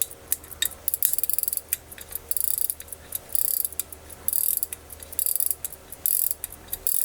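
Crown of a 1940 Vulcain 15-jewel pocket watch being wound by hand: the winding ratchet clicks in rapid runs, about five turns with short pauses between, as the mainspring is taken up to a full wind.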